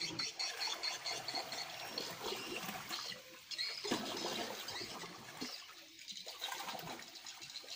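A boat paddle dipping and pulling through river water, with uneven splashing and trickling; no engine is running.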